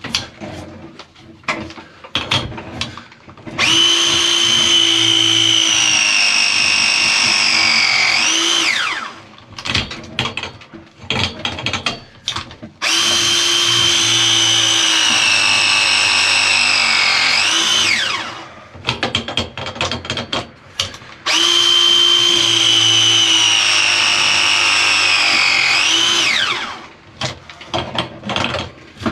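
Power drill run three times, about five seconds each, with a steady whine that sinks slowly in pitch, briefly rises, then stops. Clicks and knocks of handling fall between the runs.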